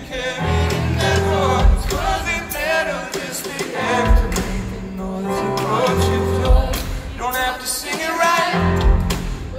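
Live band music with a male lead singer: a sung melody held and bent over strong bass notes and keyboards, with drum hits underneath.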